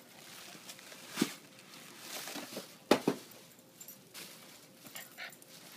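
Crumpled brown paper bags rustling and crackling as a baby's hands paw at and push them about, with a few louder sharp sounds, the loudest about three seconds in.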